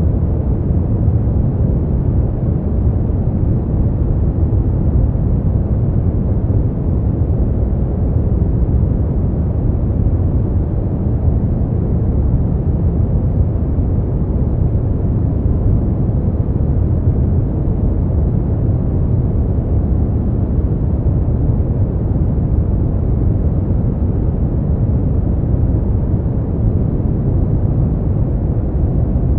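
Steady brown noise: an even, deep rumbling hiss, strongest in the low end and with little treble, at a constant level.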